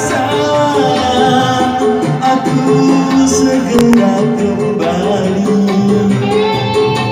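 Song music playing: a held, wavering melody line over instrumental accompaniment, with a brief click about four seconds in.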